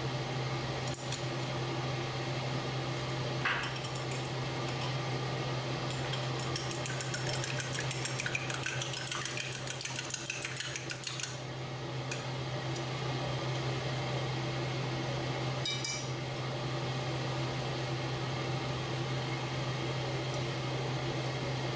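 Chopsticks and a small ceramic bowl clinking at a wok of simmering sauce over a steady low hum. There is one clink about 3.5 s in, a run of rapid light clicking from about 6 to 11 s, and a ringing clink near 16 s.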